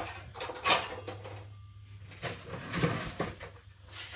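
A few short knocks and scrapes of small objects being handled while a small can is fetched to hold a removed battery, the loudest knock under a second in and a cluster of them near the end.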